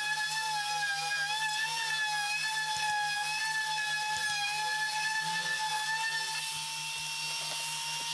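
Hand-held random orbital sander running on a flat panel: a steady high motor whine that wavers slightly as it is pressed and moved. Near the end it goes smooth and a little higher in pitch as the sander comes off the work.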